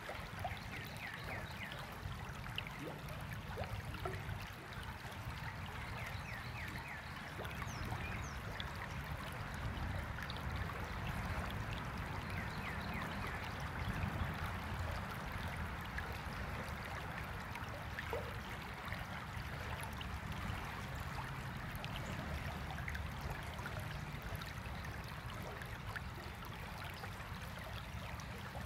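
Shallow stream water running steadily, an even rush and trickle, with a low rumble underneath and faint short high sounds scattered over it.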